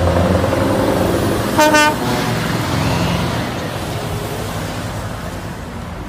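Scania semi-truck hauling a container trailer, its engine running steadily and slowly getting quieter as it pulls away. A short horn toot sounds about one and a half seconds in.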